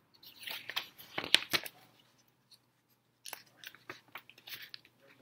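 Paper pages of a picture book being turned by hand, rustling and crackling in two spells of about a second and a half each.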